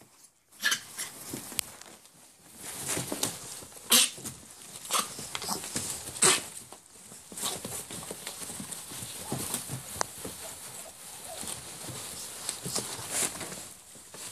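Five-week-old puppies scrabbling through shredded paper in a plastic kiddie pool: paper rustling and crinkling, with claws ticking and tapping on the plastic. The loudest sharp clicks come about 4 and 6 seconds in.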